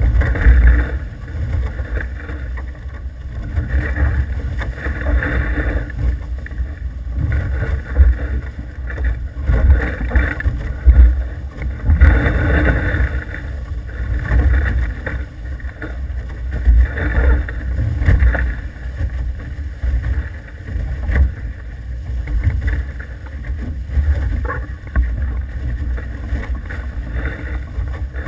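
Wind buffeting the microphone and water rushing past the hulls of an F18 catamaran under sail, a steady noise that swells and eases every second or two.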